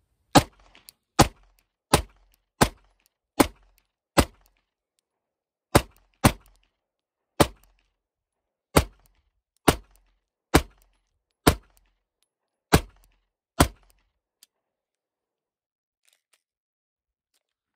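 Fifteen shots from a PSA Dagger 9mm Glock-clone pistol, fired at a steady pace of roughly one every three-quarters of a second, with a short pause after the sixth, the last about fourteen seconds in. Every round goes off: the pistol is firing again after its broken firing pin was replaced.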